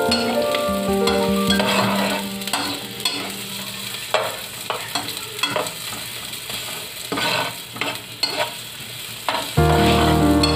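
Ginger and onion slices sizzling in oil in a pot while a spoon stirs them, with short clicks and scrapes of the spoon against the pot. Background music fades out in the first couple of seconds and returns loudly near the end.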